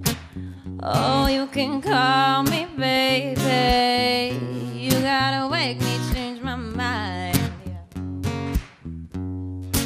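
Live band music: an acoustic guitar being strummed, with a voice singing a melody of long held notes over it through the middle.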